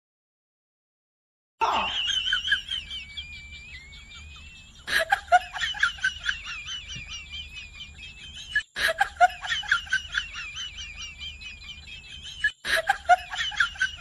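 Silence for about a second and a half, then very high-pitched laughter. It repeats in the same pattern about every four seconds, as a loop, breaking off abruptly at each restart.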